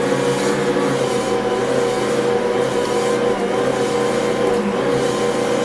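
Ankarsrum Assistent stand mixer running steadily, its motor turning the stainless steel bowl of dough against the roller arm, a steady hum with a few fixed tones. This is the mixing stage, working yeast into a double batch of dinner-roll dough before kneading.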